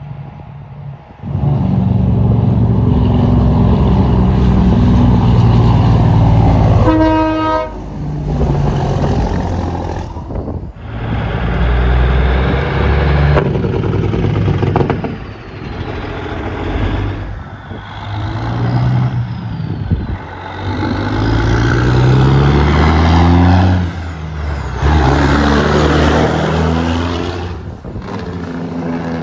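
Heavy diesel truck engines running loud through several short cuts, with engine-brake (Jake brake) bark and revving that rise and fall in pitch. A brief horn blast sounds about seven seconds in.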